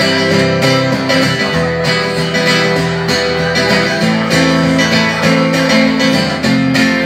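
Solo acoustic guitar strummed steadily, playing chords in an instrumental break of a live folk-pop song with no singing.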